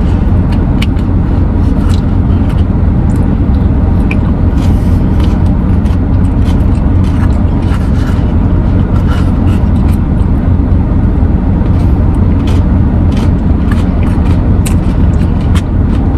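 Loud, steady low rumble of the kind heard inside a running vehicle, with scattered small clicks over it.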